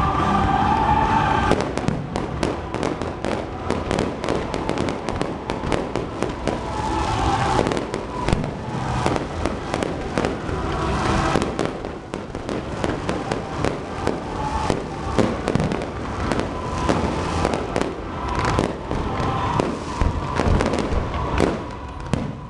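Fireworks display: a continuous barrage of bangs and crackling shell bursts, one after another.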